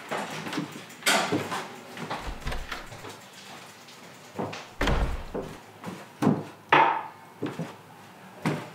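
Scattered knocks and thuds around a small room, about one every second or two; the one about five seconds in is a heavy, deep thud, like a door being shut.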